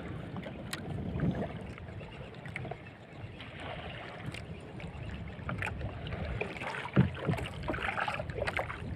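Choppy sea water sloshing against the hull of a small outrigger boat, with scattered light clicks and a sharper knock about seven seconds in.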